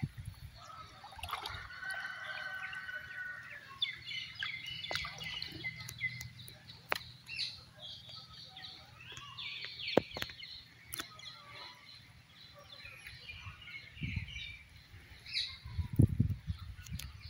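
Birds chirping and calling in many short notes, with splashing and dripping water from a cast net being hauled through the river and gathered up; the splashes are loudest near the end.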